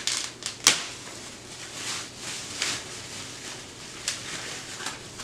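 Bike repair stand parts and packaging being handled: several sharp clicks and knocks, the loudest under a second in, with short rustles of packaging between them.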